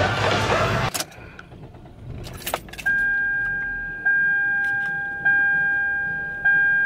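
Music from outside cuts off abruptly about a second in as the car door shuts, followed by a few clicks. From about three seconds in, the car's dashboard warning chime dings steadily, one clear tone repeating about once every 1.2 seconds.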